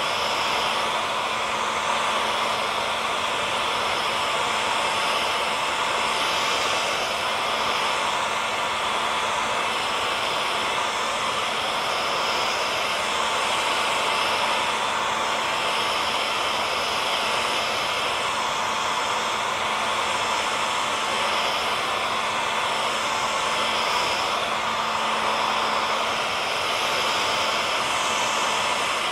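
Hair dryer running steadily: an even rush of blown air with a constant motor hum and faint whine, unchanging throughout.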